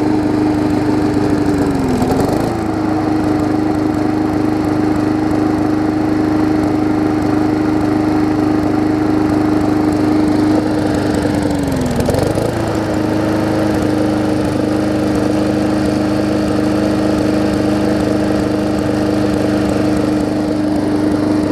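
Briggs & Stratton Classic push-mower engine running steadily. Its speed sags briefly and recovers twice, about two seconds in and again about halfway through.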